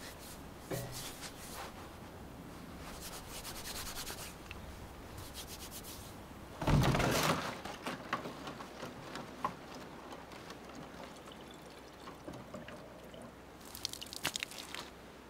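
A blue plastic water jug is handled on a truck tailgate: one heavy thump about seven seconds in as it is set down, followed by scattered knocks. Near the end, water runs briefly from its spigot into a container.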